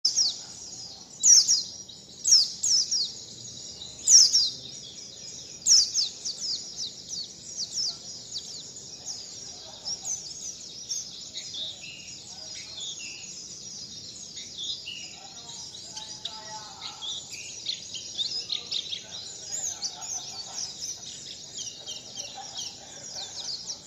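Songbird giving rapid high-pitched chirps that each sweep downward, with a few loud calls in the first six seconds, then a busier run of quicker, softer chirps.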